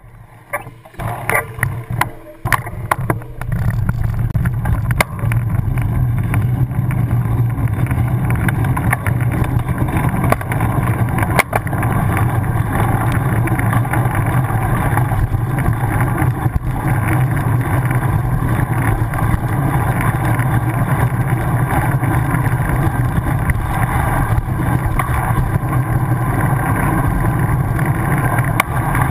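Road bike rolling along tarmac: a steady rumble of tyre and wind noise, after a few sharp knocks in the first three seconds as it gets going.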